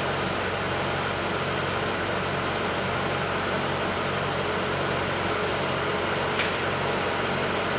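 Toyota Camry XV50's 2.5-litre four-cylinder engine idling steadily, heard from beneath the car, kept running warm so the automatic transmission's fluid level can be set at temperature. A light click about six seconds in.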